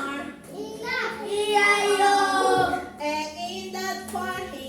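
Children singing a song, with one note held for over a second.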